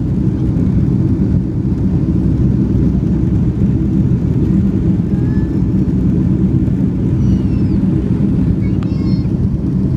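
Steady low rumble of jet engines and rushing airflow heard inside an airliner cabin during the climb after takeoff.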